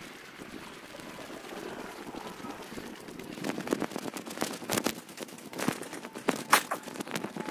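Footsteps on a tarmac footpath, sped up, heard as a run of sharp, irregular clicks and scuffs that start about halfway through and grow louder toward the end, over a faint steady hiss.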